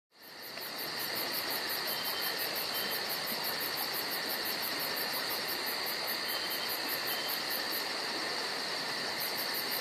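Steady insect chorus, a high chirring with a fast, even pulse in its highest part, fading in over the first half second.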